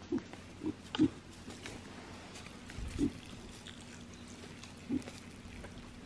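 Piglets grunting softly: about five short grunts, the loudest about a second in and about three seconds in.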